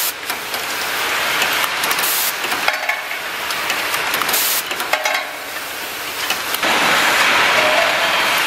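Automatic faucet assembly machine running: a steady mechanical clatter with two short sharp hisses, about two seconds in and again near the middle. Near the end it gives way to a louder, steady din of many assembly machines running together.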